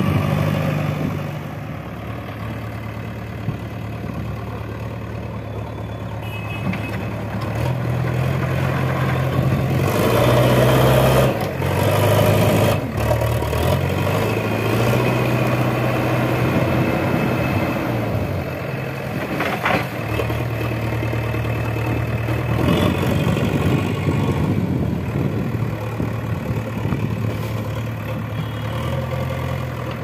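Diesel engine of a JCB 3DX backhoe loader running as the front bucket is worked, its speed rising and falling several times and highest about ten to twelve seconds in. A brief clatter about twenty seconds in.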